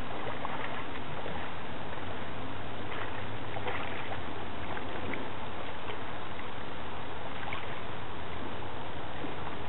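A hooked freshwater drum splashing and thrashing at the water's surface while it is reeled in, a few brief splashes over a steady background hiss.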